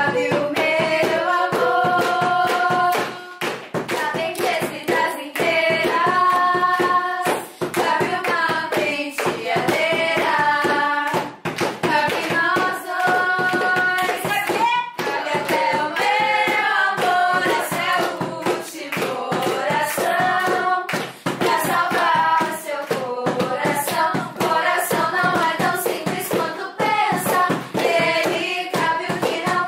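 Several voices singing a song together, accompanied by a strummed ukulele and rhythmic hand clapping.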